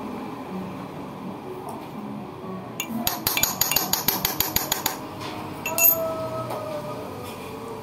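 A quick run of light metal-on-metal clinks, about seven or eight a second for some two seconds, then a single louder clink, over a low steady workshop hum.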